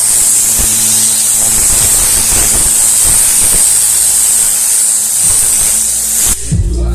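Tornador compressed-air cleaning gun blowing, a loud steady hiss that cuts off about six seconds in.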